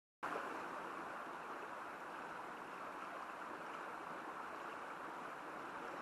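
Steady rush of a fast-flowing mountain stream, cutting in suddenly about a quarter of a second in after silence.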